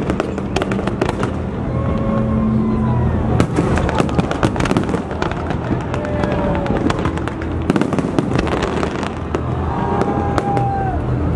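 Fireworks display: many bangs and crackles from bursting shells in quick succession, over a continuous rumble.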